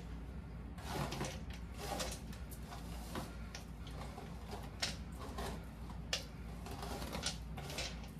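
Pink paddle wig brush drawn through a ponytail: a string of irregular, soft brushing swishes, one or two a second.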